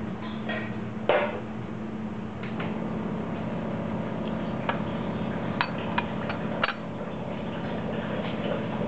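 Glass lid clinking several times against the rim of a glass teapot as it is set on, after a single louder knock about a second in; a steady low hum runs underneath.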